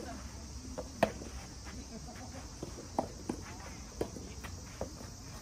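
Tennis rally: sharp knocks of rackets striking the ball and the ball bouncing on the court, about six at irregular intervals, the two in the first second the loudest.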